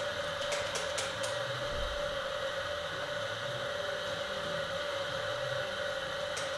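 Electric coffee grinder running steadily as it grinds beans, a constant motor whir with a few quick clicks about half a second to a second in.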